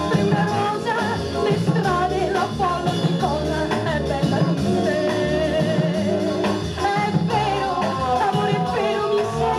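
A song with a singing voice over a steady beat, played from a 7-inch single on a Fidelity UA7 record player.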